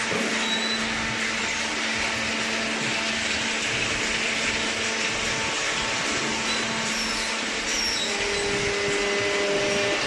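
Steady machine hum from a running hydraulic waste-paper baler line, a constant noisy drone with a few faint steady tones; a new steady tone joins about eight seconds in.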